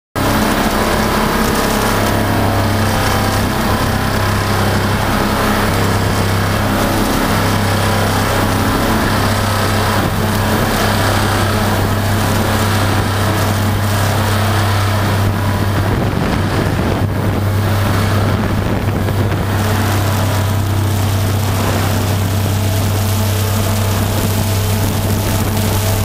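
40VM vibratory pile hammer clamped on a pile, running continuously as it drives the pile: a loud, steady, deep drone with an even hum.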